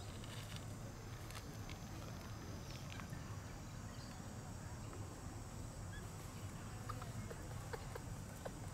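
Outdoor ambience: a steady low rumble and a faint steady high hum, with scattered small clicks and rustles, and a few short faint chirps near the end.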